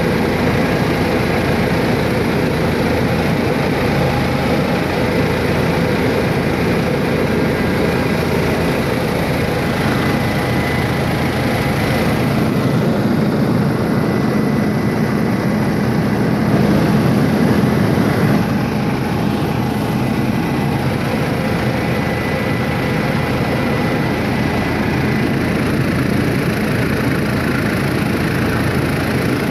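Helicopter engine and rotor noise heard from inside the passenger cabin in flight: a loud, steady drone, swelling slightly about halfway through.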